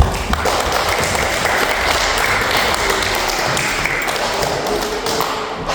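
An audience of young children applauding, many hands clapping in a dense, steady patter that eases slightly near the end.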